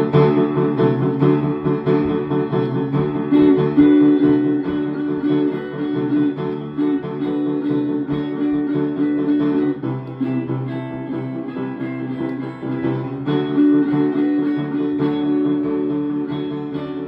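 Guitar music: picked and strummed chords on guitar, slowly fading near the end.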